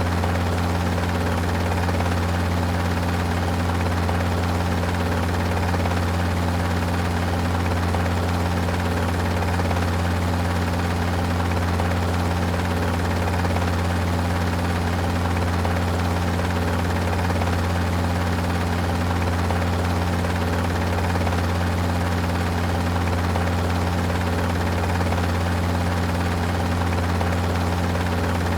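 Helicopter running steadily, a constant low drone that neither rises nor fades.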